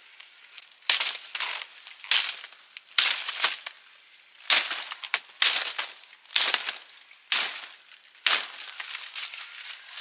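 A series of about eight sharp crunching strokes, roughly one a second, each dying away quickly.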